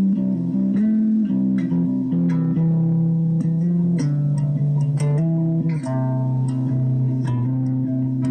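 Music: plucked guitar with bass, notes changing about every half second.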